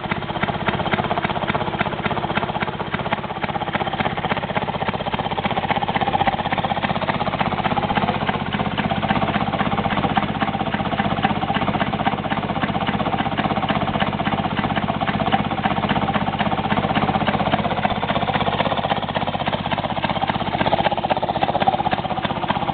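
Maytag Model 92 single-cylinder two-stroke engine running steadily, a rapid even popping beat.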